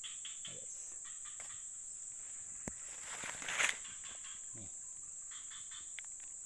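Forest insects keep up a steady high-pitched drone with repeated trains of chirps. A sharp click comes a little before the middle, followed by a brief, louder rustle.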